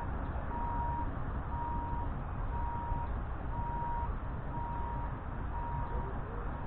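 An electronic beeper sounding evenly, about one half-second beep per second, over a steady low rumble.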